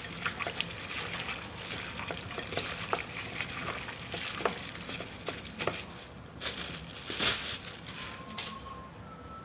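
Plastic-gloved hands squeezing and turning raw chicken pieces in a wet marinade in a bowl: irregular wet squelches with the crinkle of the plastic gloves. A couple of louder knocks come about two-thirds of the way in, then the mixing stops and it goes quieter.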